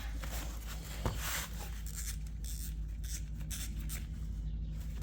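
Close handling noises: irregular rubbing and scraping of tools and parts being handled, with one sharp click about a second in, over a steady low hum.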